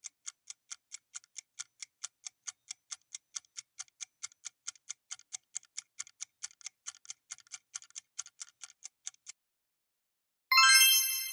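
Ticking countdown-timer sound effect, about four ticks a second, that stops about nine seconds in as the countdown reaches zero. About a second later a louder, bright chime sounds and fades, marking the answer reveal.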